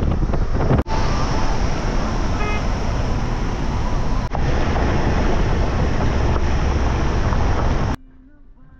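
Wind rush on the microphone and road noise from a moving vehicle, heavy in the low end, with two momentary dropouts about one and four seconds in. Near the end it cuts off suddenly, leaving faint music.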